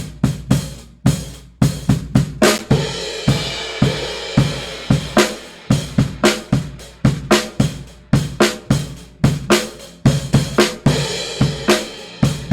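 Drum kit playing a steady groove of kick, snare, hi-hat and cymbals, picked up by a single mono front-of-kit microphone and heard with the console EQ bypassed, in its unequalized state.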